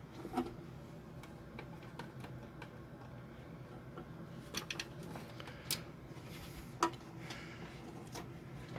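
Scattered small clicks and taps as the old flow switch and its wire are pulled out of a tankless electric water heater, including a quick group of three clicks near the middle and a sharper one about seven seconds in, over a faint steady hum.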